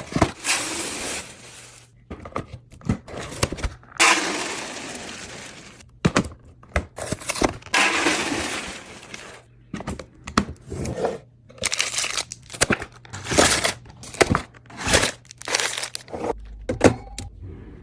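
Kitchen containers and glassware being handled and set down: a rapid series of sharp clinks and knocks, broken by three stretches of steady rustling noise of about two seconds each.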